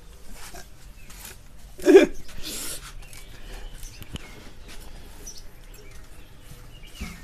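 A brief burst of a person's voice about two seconds in, over faint scattered clicks and low background noise.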